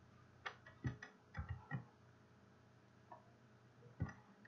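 Clicks of a computer mouse and keyboard: about six in quick succession in the first two seconds, then two more spaced out later.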